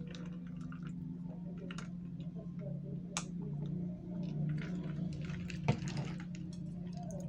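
Close-miked eating sounds: chewing and soft wet mouth noises with a few sharp clicks, the loudest about three quarters of the way through, over a steady low hum.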